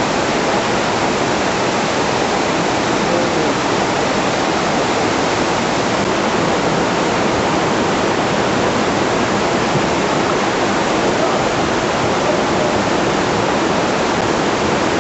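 Flash-flood water rushing in a steady, loud, unbroken torrent.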